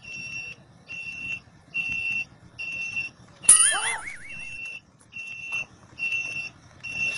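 Electronic beeper sounding a steady high-pitched beep, each about half a second long, repeating a little more than once a second. About halfway through, a loud sudden burst with a wobbling, wavering pitch cuts in for about a second.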